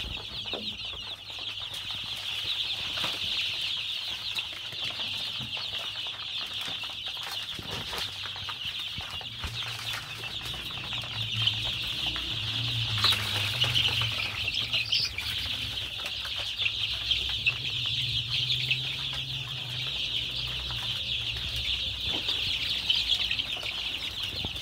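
A flock of desi chicken chicks peeping without a break, many high calls overlapping.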